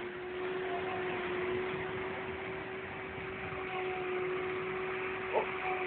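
Steady mechanical hum over a background hiss, with a brief faint sound about five and a half seconds in.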